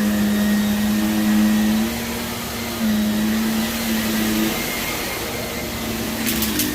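Vacuum cleaner running over heavily soiled carpet, its motor hum rising and falling with each push and pull. Near the end comes a quick run of sharp crackles as grit is sucked up.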